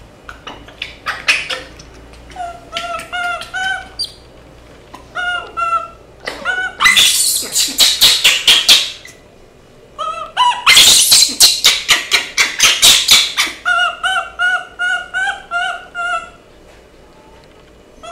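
Baby macaques calling: runs of short, high squeaks repeated several times a second, and twice a run of loud, rapid screams lasting two to three seconds each.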